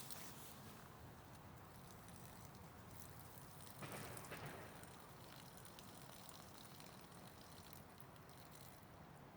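Near silence: faint outdoor background with one brief soft rustle about four seconds in.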